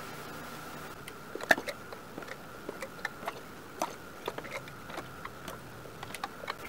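Light clicks and taps of flat metal canning lids being set down on the rims of filled glass jars, a dozen or so irregular ticks over a faint steady high hum.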